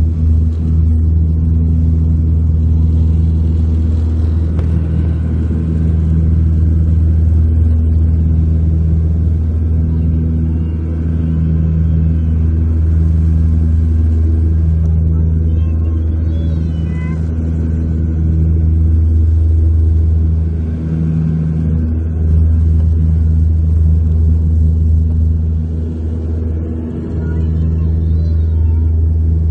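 Drone of a Dash 8-300's twin PW123 turboprops heard from inside the cabin: a steady, loud low propeller hum whose level slowly swells and eases.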